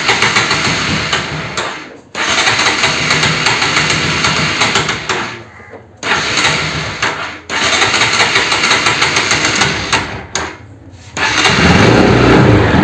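Bajaj Pulsar NS200's single-cylinder engine being cranked on the electric starter in four long attempts with short pauses between them, then catching about 11 seconds in and running. This is the first start after the rat-chewed wiring harness was rejoined.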